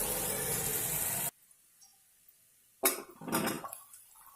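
Okra frying in oil in a kadhai with a steady sizzle, which cuts off abruptly about a second in. After a silent gap there is a sudden knock near the end, then a second shorter noise.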